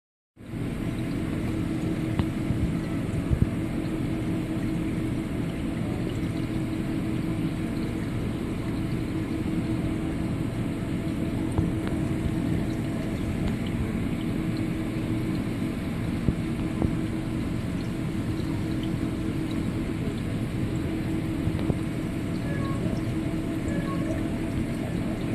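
Small reef aquarium's water pump running: a steady hum over the rush of circulating, bubbling water, with an occasional faint click.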